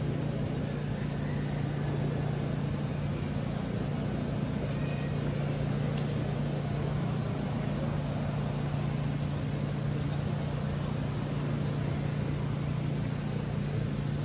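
A steady low hum, like a motor running, over constant background noise, with a couple of faint clicks about six and nine seconds in.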